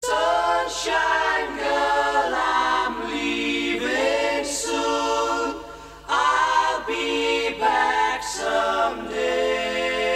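Background music: a group of voices singing in close harmony without instruments, in short phrases that break every second or so, starting abruptly out of silence.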